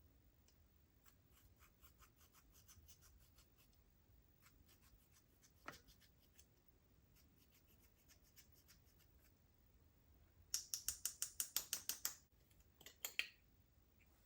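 Slime being pressed and worked by hand, giving off small sticky popping clicks: faint at first, one sharper pop about halfway, then a fast run of about a dozen loud crisp clicks and a few more near the end.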